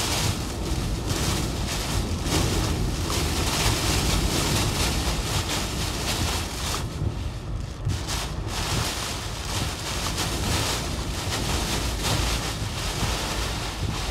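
Hurricane eyewall winds and driving rain lashing a vehicle, with heavy wind buffeting on the microphone. The noise rises and falls in gusts and eases briefly about seven seconds in.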